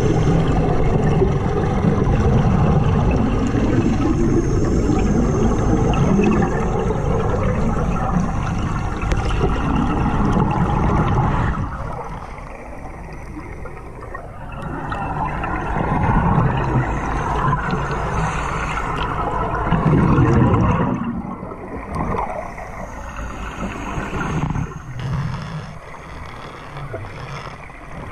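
Underwater bubbling of a compressor diver's exhaled air, breathing off a surface-fed hose. A dense, continuous rush for the first dozen seconds, then it breaks into separate surges of bubbling, with a louder stretch in the middle.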